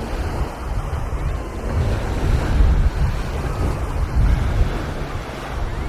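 Wind buffeting the microphone as a low rumble that swells and eases in gusts, over a steady wash of sea surf.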